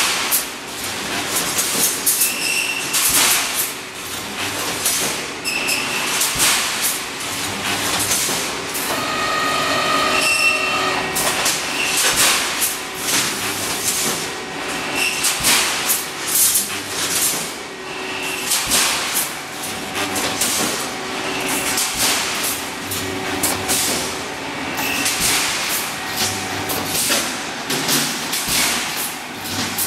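Automatic rebar mesh welding machine running: a continuous metallic clatter of repeated clanks and knocks as the welding cycle and mesh feed go on, with a brief squealing tone about ten seconds in.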